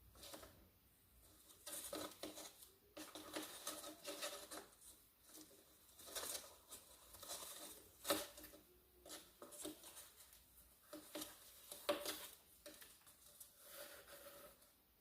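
Rustling and light tapping of a paper cup and twine being handled as the twine is threaded through the cup's punched holes and tied, with two sharper clicks about eight and twelve seconds in.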